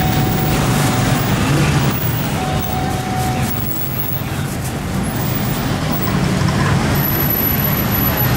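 Steady street traffic: motor vehicles running close by with a continuous low rumble.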